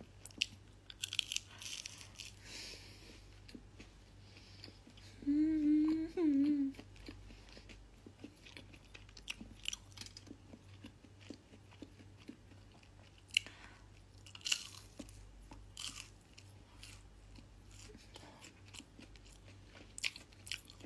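Crunchy bites and chewing of fried chicken close to the microphone, a scatter of short crisp crunches. About five seconds in comes a short hummed "mm", in two parts, the loudest sound here.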